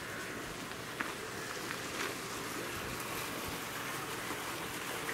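Steady murmur of a small stream's flowing water, with a couple of sharp ticks about one and two seconds in.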